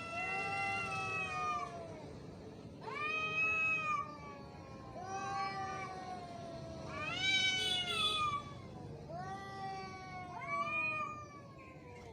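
Angry cat yowling: a string of about five long, drawn-out, wavering calls, each one to two seconds long, with two calls overlapping near the middle.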